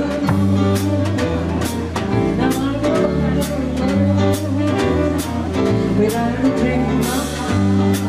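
Small jazz band playing live: a woman singing over upright double bass and a drum kit keeping a steady beat with cymbal strokes.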